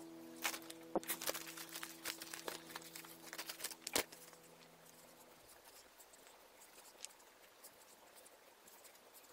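Faint rustling and small scratchy clicks of cotton sock-loop strips being pulled and looped through each other by hand, busiest in the first four seconds with two sharper clicks about a second in and at four seconds, then only occasional soft ticks.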